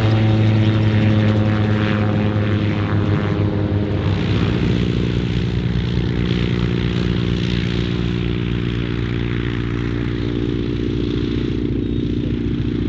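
Gyroplane engine and propeller running loudly for the first four seconds. It then gives way to a Boeing PT-17 Kaydet's seven-cylinder radial engine running steadily with an even, pulsing beat as the biplane taxis.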